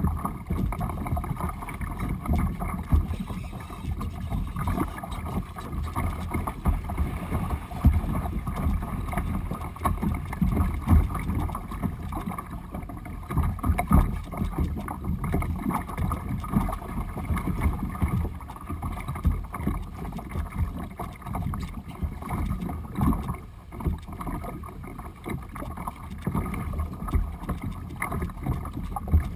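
Water splashing and rushing along the plastic hull of a sit-on-top kayak moving through choppy water, with wind buffeting the microphone.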